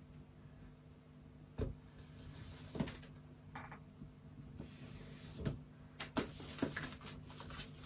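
Knife scraping and slitting along the edge of a cardboard box, with rustling and light knocks as the box is handled on the desk. The scraping gets busier over the second half.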